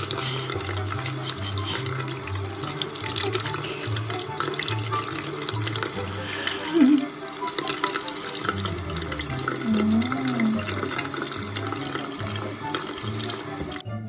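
Tap water running steadily into a sink and splashing over hands. It cuts off suddenly near the end. A low, steadily pulsing bass line of background music runs beneath it.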